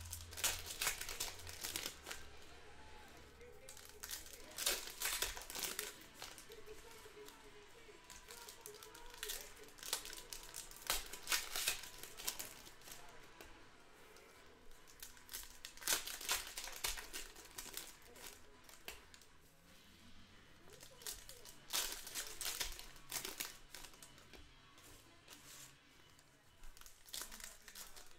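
Foil wrappers of Panini Prizm trading-card packs being torn open and crinkled by hand, in bursts every few seconds, with quieter card handling in between.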